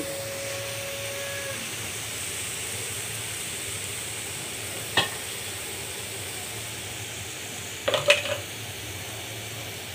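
Grated carrot frying in ghee in a nonstick pan, a steady sizzle as the carrot's water cooks off. A brief steady tone sounds at the start, a sharp knock comes about five seconds in, and a short clatter near eight seconds.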